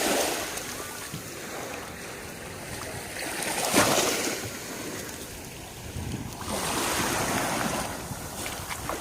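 Small sea waves washing in at the shore, swelling in three surges, the loudest a little under halfway through.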